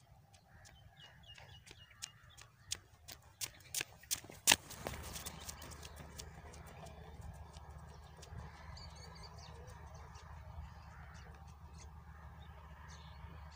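Running footsteps on a dirt road, a string of sharp irregular steps growing louder as the runner nears, the loudest about four and a half seconds in, then a steady low rumble.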